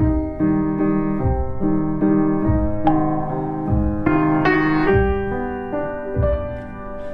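Slow background piano music, single notes and chords struck every half second or so and left to ring.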